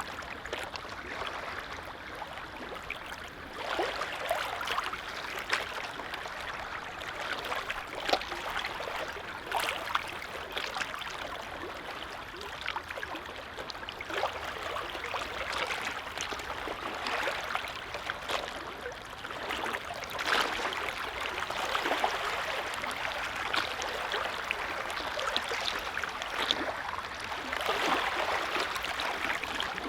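Small waves on a lake lapping and splashing: an even wash of water with many little splashes, swelling and easing every few seconds.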